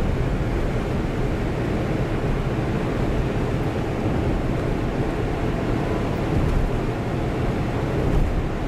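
Steady road and engine noise inside a moving car's cabin: a constant low rumble of tyres on the highway.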